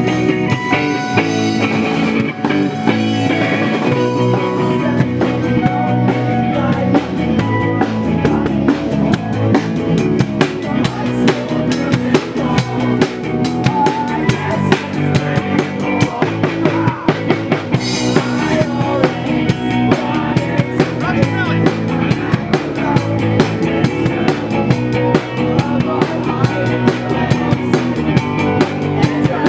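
Live rock band playing, a drum kit keeping a steady beat under electric guitar.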